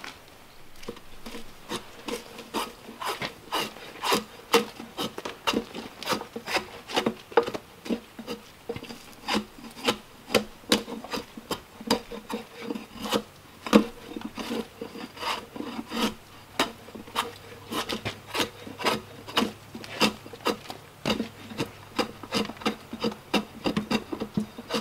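Long steel blade scraping and stripping thick bark off a tulip poplar log in quick, uneven strokes, about two a second. Each stroke is a short rasping scrape of steel on wood. The strokes begin about a second and a half in.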